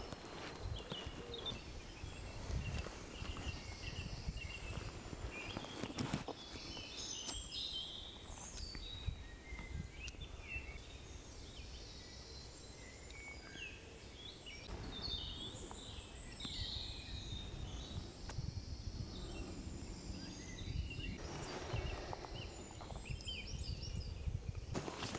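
Woodland birdsong: several birds singing short, high chirps and trills, over a steady low rumble.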